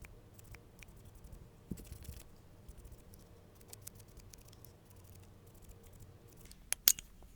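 Small clicks and taps of nail-art tools and materials being handled, with a short scrape about two seconds in and two sharp clicks near the end.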